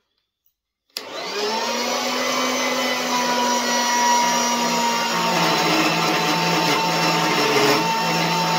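Electric band saw in a cutting stand switching on about a second in, its motor whine rising briefly and then running steadily as it cuts a metal bar.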